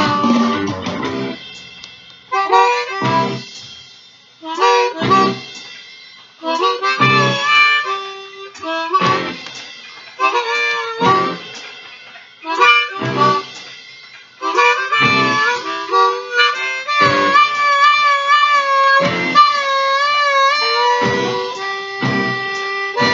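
Diatonic blues harmonica improvising: short phrases for the first part, then from about two thirds in long held notes that bend and waver. A backing accompaniment strikes a chord about every two seconds underneath.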